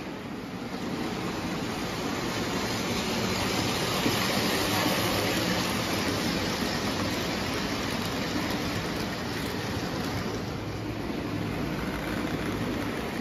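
O gauge model train running on three-rail tubular track: a steady rumble of metal wheels on the rails as a string of streamlined aluminum passenger cars passes close. It grows louder about a second in and eases off near the end.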